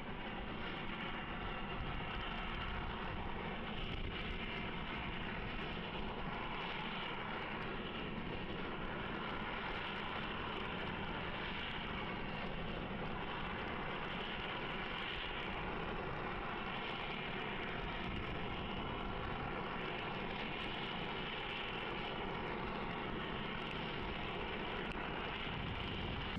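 A large engine running steadily under a constant rushing noise, with no change in pitch or level.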